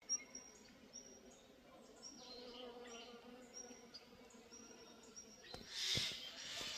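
Honeybees buzzing while foraging, a faint low hum that swells about two seconds in, with birds chirping repeatedly in the background. Near the end a louder rustling noise with a few low thumps rises over it.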